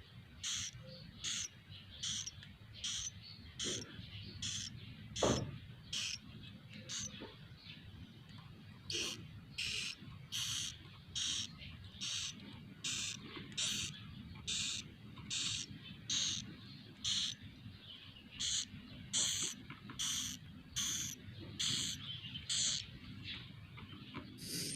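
Edible-nest swiftlet chicks calling: a long run of short, hissing, raspy chirps, about two a second, over a low steady hum, with one dull knock about five seconds in.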